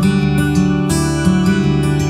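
Background instrumental music of plucked acoustic guitar, with notes changing every fraction of a second.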